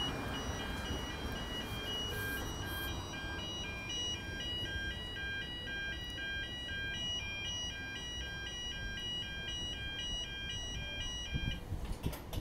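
Electronic railway warning alarm sounding a rapid two-note pattern over and over, cutting off about a second before the end.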